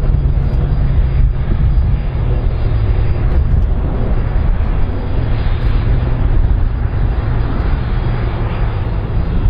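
Airbus A310-304's turbofan engines running as the airliner rolls along the runway: a loud, steady, deep rumble.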